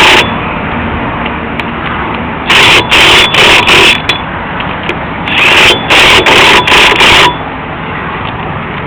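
DeWalt cordless power tool, most likely an impact wrench on the lug nuts, run in two clusters of about four short bursts each, with a steady background hum between them.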